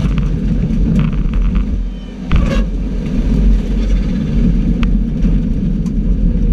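Subaru rally car's engine running hard over gravel, with a steady rumble and a few sharp ticks from stones. About two seconds in the noise drops briefly, then a sudden heavy thump follows as the car lands from a jump.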